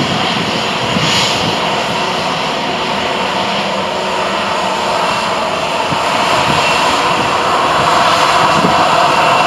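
Jet engines of an easyJet Airbus A320 taxiing past at low thrust, a steady whine and rush that grows somewhat louder after about six seconds.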